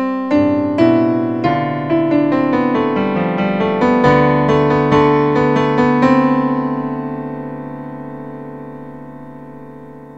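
Solo electro-acoustic piano music: a run of struck notes and chords, ending about six seconds in on a final chord that is held and slowly dies away.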